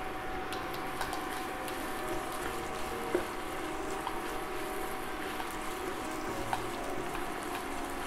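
Chopped red onions sizzling in hot oil in a frying pan as they are stirred with a wooden spatula: a steady hiss with scattered small pops and clicks.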